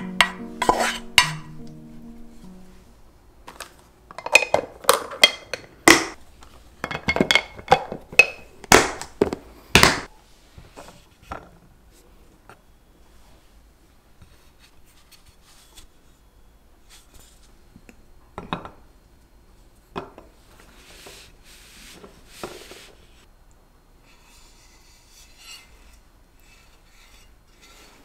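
Wooden spatula scraping and knocking against a frying pan and a glass container as cooked ground beef is transferred, a quick run of clicks and knocks lasting several seconds; after it, a few soft single knocks of kitchenware. Soft background music fades out at the start.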